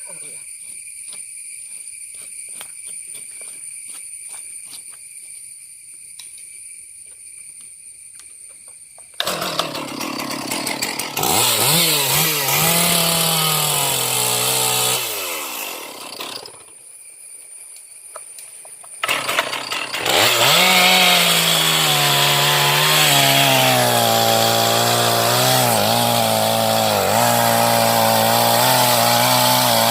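A petrol chainsaw starts about a third of the way in and is revved up and down, then drops off for a couple of seconds. It starts up again and runs steadily at high revs with small dips in pitch, typical of the saw cutting into the mahogany trunk.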